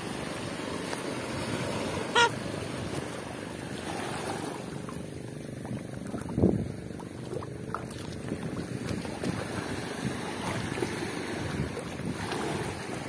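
Wind and surf noise with footsteps sloshing and splashing through shallow seawater over a rocky reef flat. A short high squeak comes about two seconds in, and a dull thump about six seconds in.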